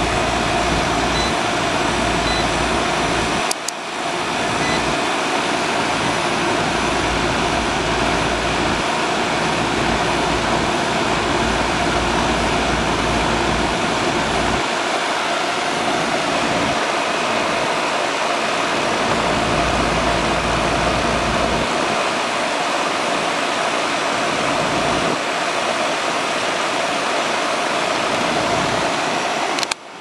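Trane XE1000 air-conditioning condensing unit running steadily, its compressor and condenser fan giving a continuous rushing hum. It has just been restarted with a hard-start booster fitted to its worn compressor, and its running current is within range.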